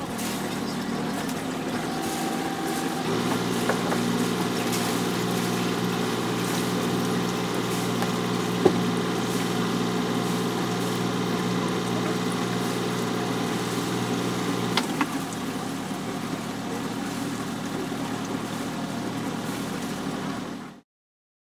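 Sailboat's engine running steadily under the helmsman's control while docking, its hum growing stronger about three seconds in and easing back about fifteen seconds in as the throttle is worked. A single sharp knock is heard about nine seconds in, and the sound cuts off suddenly near the end.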